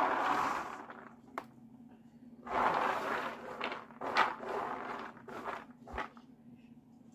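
Rehydrated popcorn kernels poured from a metal colander into a plastic tray, a rushing patter that fades away over the first second. A few seconds in, a hand sweeps the damp kernels across the tray with a scraping rustle, followed by scattered clicks of kernels being pushed about.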